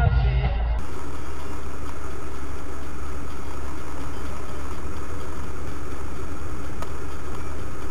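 Rock music cuts off under a second in, giving way to a steady low drone of a car's engine and road noise heard from inside the cabin through a dashcam microphone.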